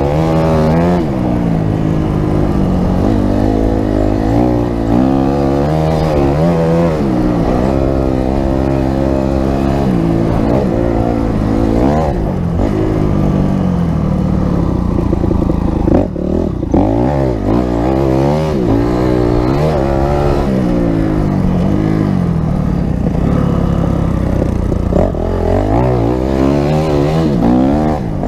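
Christini Honda CRF250X dirt bike's single-cylinder four-stroke engine revving up and down while being ridden, its pitch rising and falling again and again, with a brief lull about sixteen seconds in.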